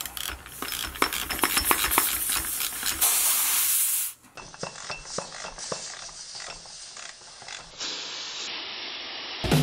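Pressurised propane hissing out of the loosened brass fuel-line fitting on a LEHR 2.5 hp propane outboard, with rapid clicking. The hiss is loud for about four seconds, then drops abruptly and carries on fainter.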